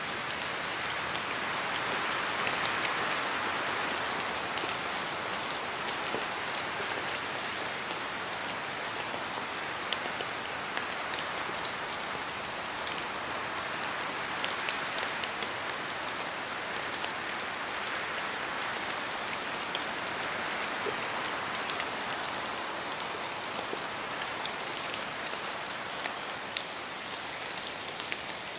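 Steady rain falling, with many separate drops ticking sharply on nearby surfaces over a continuous hiss that swells and eases slowly.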